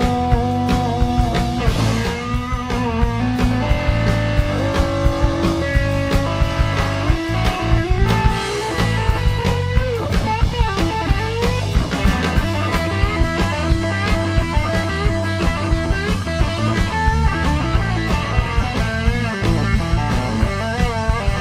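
Live rock band playing an instrumental break: electric lead guitar holds and bends notes, with vibrato near the end, over bass and a steady drum beat.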